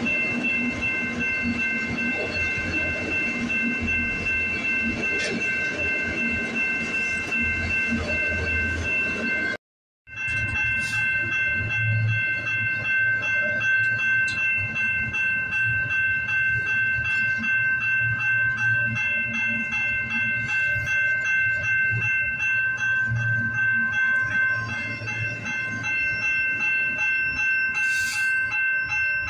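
A freight train of autorack and double-stack container cars rolls steadily past a grade crossing, with a low rumble and the clatter of wheels on rail joints. The crossing's warning bell rings quickly and without a break over it. The sound drops out briefly just before ten seconds in, then the same passing train and bell resume.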